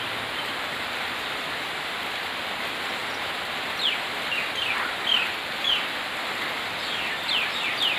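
Steady rain hiss, with a bird calling in a series of short, quick falling chirps from about halfway through.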